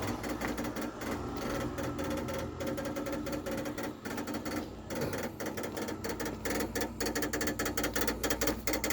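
Car making a fast, steady mechanical clicking, a dense run of ticks over a low hum, that eases briefly about halfway and then comes back louder and denser.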